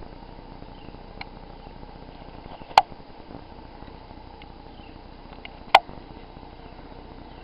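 Two sharp clicks about three seconds apart over a steady, quiet background, with a few fainter ticks between them.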